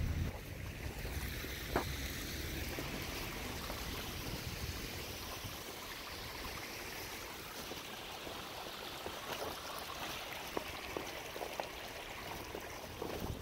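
Strong wind rushing steadily, with a few faint scattered ticks.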